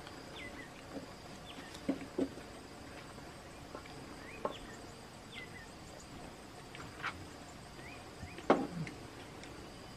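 Steady insect drone with short falling bird chirps every second or so, and a few brief knocks and smacking sounds from people eating with their hands. The loudest knock comes about eight and a half seconds in.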